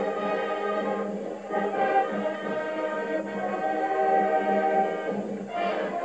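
High school marching band playing, with trumpets and sousaphones holding sustained brass chords.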